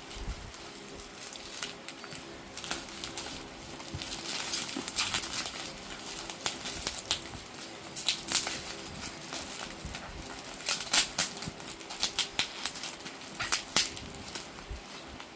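Irregular rustling and crinkling with sharp clicks, in scattered bursts that grow louder and busier after the first few seconds.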